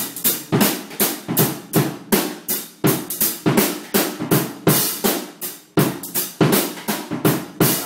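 Drum kit playing a steady groove, with snare, bass drum and cymbals struck about three times a second.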